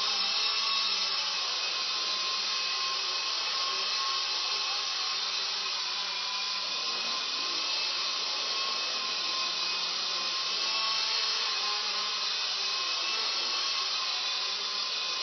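E-flite Blade 120 SR micro RC helicopter in flight: its small electric motors and rotor blades whirring in a steady high whine.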